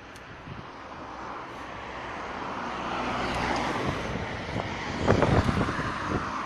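A vehicle passing close by, its tyre and engine noise swelling to a peak about three to four seconds in. A quick cluster of knocks and clatter follows about five seconds in.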